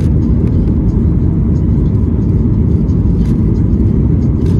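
Cabin noise of a Boeing 737 MAX 8 airliner: a loud, steady, low rumble of engines and rushing air.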